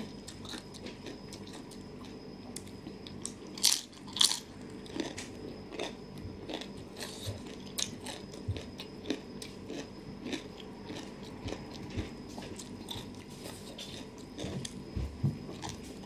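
Close-up eating sounds: crunchy bites and chewing of a spicy pounded glass-noodle seafood salad with raw long beans, full of small clicks and crackles. Two louder crunches come about four seconds in.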